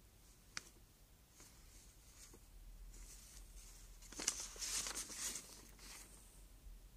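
Paper pages of a printed booklet being handled and turned, a faint crackly rustle about four seconds in, with a single small click near the start.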